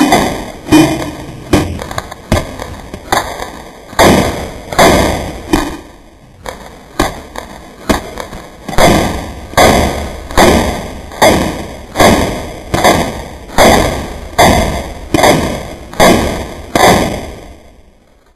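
Cybergun Thompson M1A1 electric airsoft gun (AEG) firing single shots in a steady string, a little under a second apart, each a sharp crack that dies away quickly; the string stops shortly before the end.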